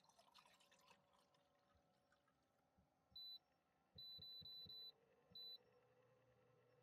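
Electronic beeps from an appliance's beeper: a short beep, a longer beep about a second later, then another short beep. A faint steady hum follows. Light clicking and handling sounds come first.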